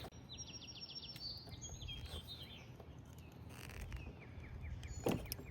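A small bird singing quick runs of high chirps, several times over, with a single sharp click about five seconds in.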